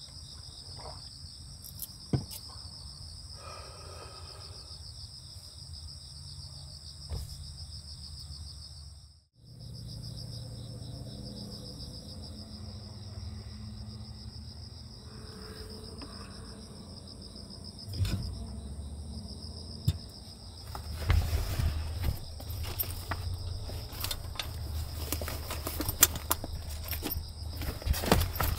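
Crickets chirring steadily in a high, pulsing band, broken off briefly about nine seconds in. In the last third, rustling and light knocks as soft fabric storage bags are handled and rummaged through.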